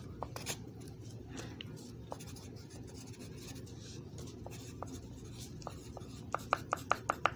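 Faint scratching and rubbing with a few light clicks, then a quick run of about eight sharp clicks near the end.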